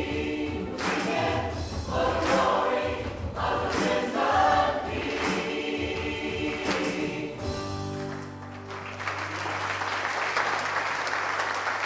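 Church choir and congregation singing the closing lines of a worship song. The singing ends on a held note about eight seconds in, and applause takes over.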